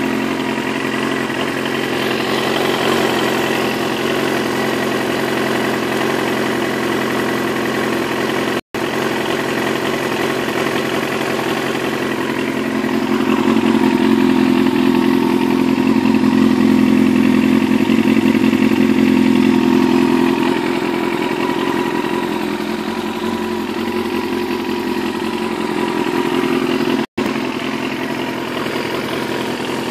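Yamaha YZF-R6 inline-four engine idling steadily while it warms up after a cold start. It gets louder for several seconds in the middle, and the sound cuts out completely twice for an instant.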